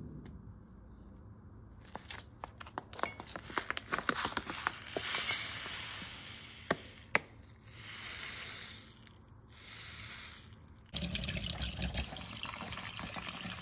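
Dry kodo millet grains pouring from a plastic packet into a steel bowl, a dense patter of small ticks. About eleven seconds in, a tap starts running, water splashing onto the grains in the steel bowl.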